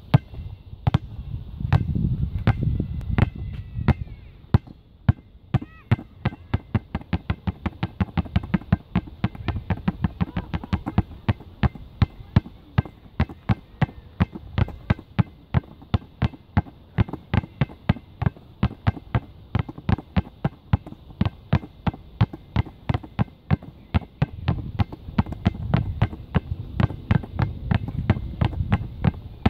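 Two basketballs dribbled on an asphalt path: a long, even run of sharp bounces, a few a second, that grows quicker after the first few seconds.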